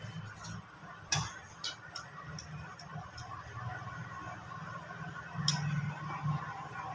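Light clicks and taps from handling a Nokia phone's plastic body and battery compartment, a loose run of them in the first few seconds, with a sharper click about a second in and another near the end.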